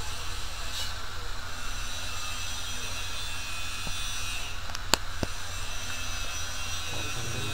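Steady low mechanical hum in the background, with a sharp metallic click about five seconds in and a few fainter clicks, as the metal tilt mechanism of a broken swivel office chair is handled.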